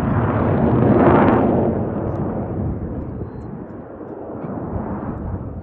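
Roar of a formation of Blue Angels F/A-18 jets passing overhead. It is loudest about a second in, then fades as they pull away.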